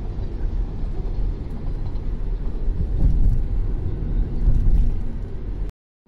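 Steady low vehicle rumble that cuts off abruptly near the end.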